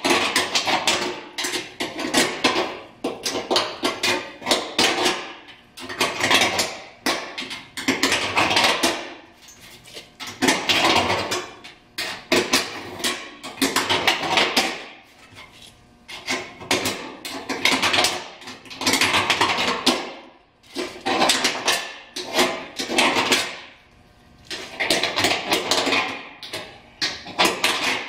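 Hand deburring tool scraping the cut edges of freshly cut holes in a steel fender, to take the burrs off the sheet metal. It goes in repeated bursts of rapid scratchy clicking, each a second or two long, with short pauses between.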